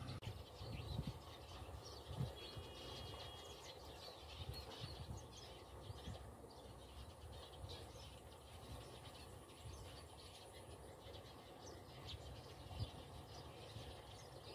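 Quiet outdoor ambience: faint birds chirping over a low rumble, with a few soft bumps.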